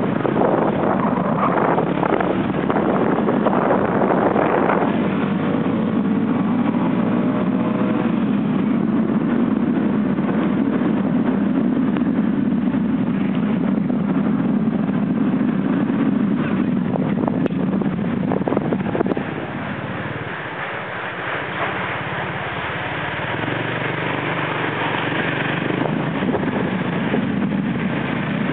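Motorbike running along a street with wind rushing over the microphone; the engine note rises for a few seconds in the first third, and the sound drops a little about twenty seconds in.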